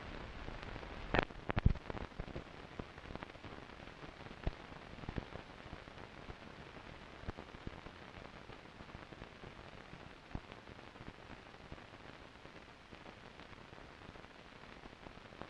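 Steady hiss and crackle of an old film soundtrack, with scattered sharp clicks and pops; the loudest pops come between one and two seconds in.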